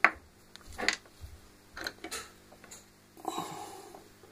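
A few light, sharp clicks and taps as a tablet circuit board is handled in the fingers, about four of them in the first two and a half seconds. A short hum follows about three seconds in.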